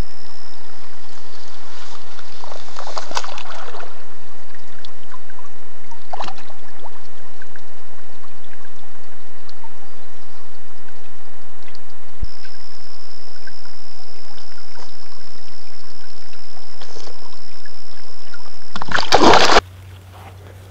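Loud, steady trickling water as picked up by a night trail camera's microphone, with a thin high whine that comes and goes. Brief louder splashy sounds about 3 and 6 seconds in, and a loud rush near the end.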